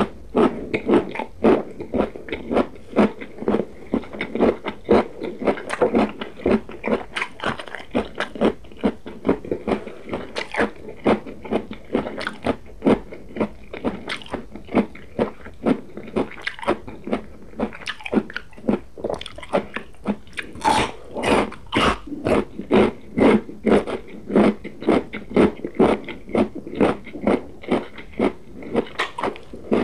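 Close-miked crunching and chewing of crisp raw vegetables, including a raw carrot stick: a steady run of crunchy bites and chews, a couple a second.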